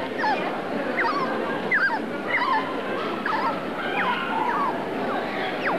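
Many dogs yelping and whining: short, high, rising-and-falling cries, several a second and overlapping one another, over a steady background hubbub.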